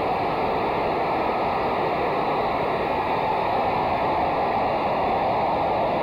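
Baseball stadium crowd cheering as three runs score on an outfield error, heard as a loud, steady roar of many voices.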